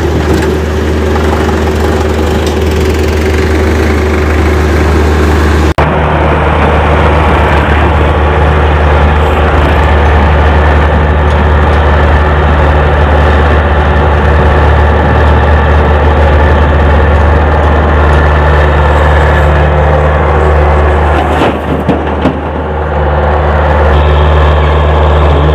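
Farm tractor's diesel engine running steadily and loud, close by, with a brief break about six seconds in.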